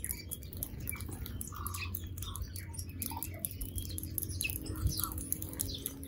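Several small birds chirping, with many short calls overlapping, over a steady low rumble.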